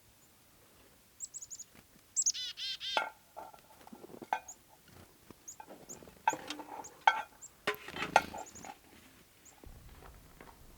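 Small birds calling. A few short high chirps come about a second in, followed by a quick run of repeated notes, then scattered calls and chirps.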